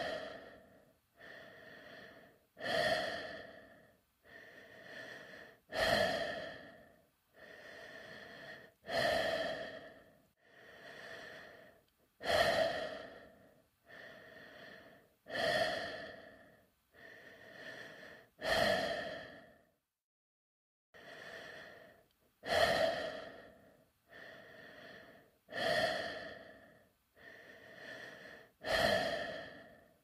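Sound effect of a person breathing inside a space helmet: slow, regular breaths, softer and louder ones alternating, with a louder breath about every three seconds. Every breath carries the same hollow ring. The breathing stops for about a second roughly two-thirds of the way through.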